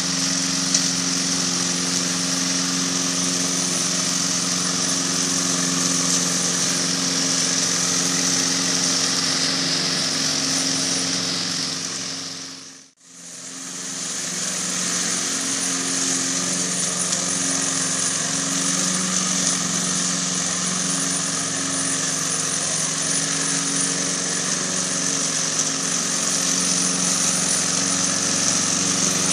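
Radio-controlled lawn mower running steadily with an even engine hum. The sound fades out to near silence about thirteen seconds in and fades straight back in.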